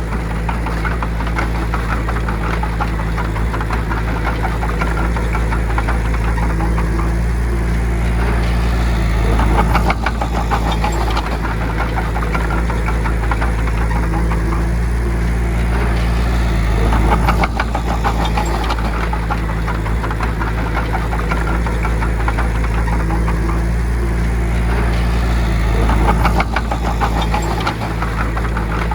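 Bulldozer's diesel engine running steadily, swelling louder about every eight seconds with a burst of metallic clatter at each peak.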